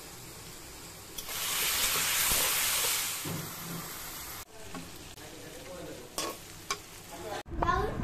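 Sliced onions sizzling in hot oil in a wok, the sizzle growing much louder about a second in. After a cut, pieces of meat are stirred in the wok with a metal spatula, with quieter frying and sharp scrapes of the spatula against the pan.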